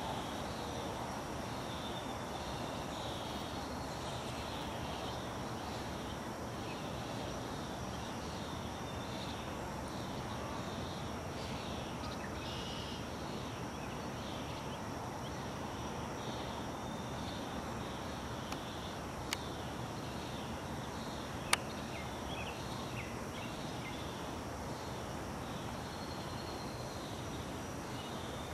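Background songbirds chirping in short, repeated falling notes over a steady outdoor hiss, with a thin, steady high whine. A few small clicks come in the second half, the sharpest about 21 seconds in.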